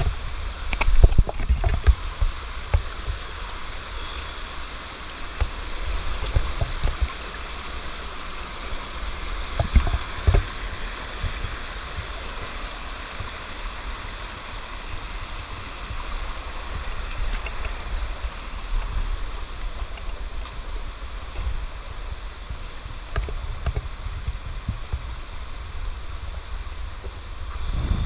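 Steady rushing of a rocky mountain stream, water running over boulders, with irregular dull thumps, the biggest about a second in and around ten seconds in.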